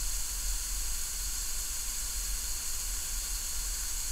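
Steady high-pitched hiss with a low hum underneath and no distinct events: the recording's own background noise.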